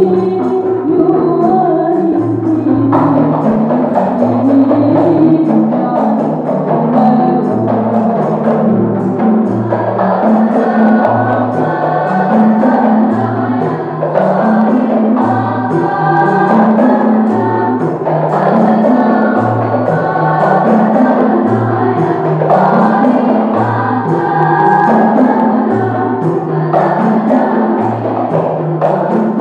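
Qasidah: a women's group singing together behind a lead singer, accompanied by rebana frame drums and tambourines, over a steady, repeating low beat.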